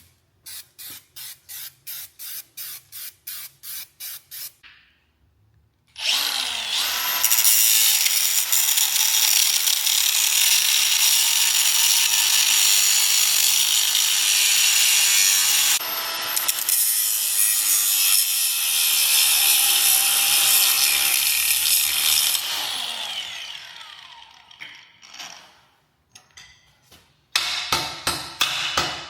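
Rapid, even knocks at about three a second stop after a few seconds. Then a power tool runs loudly and steadily for about sixteen seconds, dipping briefly near the middle, and winds down. Near the end the even knocking starts again.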